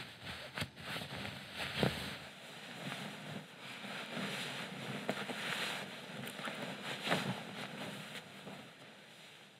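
Cloth rustling as fabric is twisted and a garment is handled, with a few short sharper knocks.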